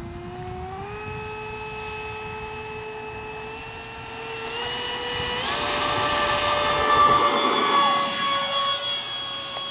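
Electric ducted fan of a SAPAC T-45 Goshawk model jet whining as it spools up on the takeoff roll, its pitch rising at first and then stepping up twice as the throttle is advanced, loudest about seven seconds in. A low rumble of the wheels on the dirt strip stops at liftoff, about seven seconds in.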